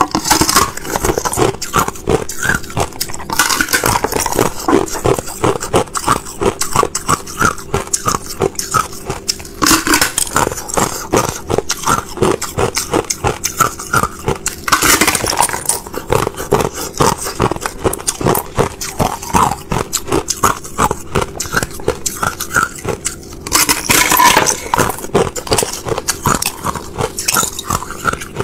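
Thin sheets of clear ice being bitten and chewed close to the microphone: dense, rapid crackling and crunching, with several louder bites.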